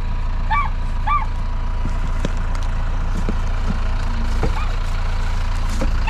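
Tractor engine idling steadily. Two short, high arched calls sound in the first second, and a few faint knocks follow later.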